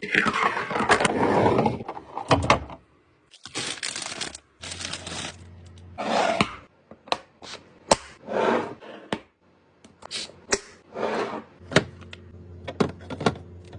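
Food containers and plastic packaging being handled while a fridge is restocked: a string of sharp clicks, knocks and short rustling sweeps. A low steady hum comes in twice, once about five seconds in and again near the end.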